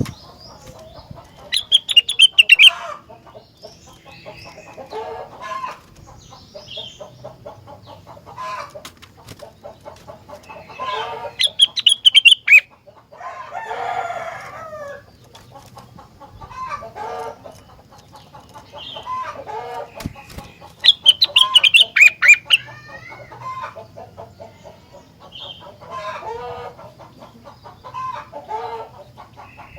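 Rengganis songbird singing: three loud, rapid song phrases about ten seconds apart, with softer, lower calls between them.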